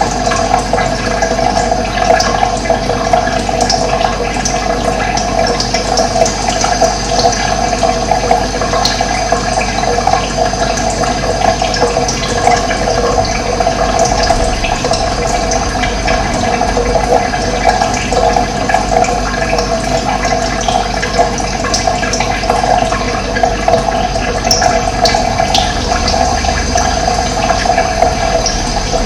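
Running water rushing steadily without a break.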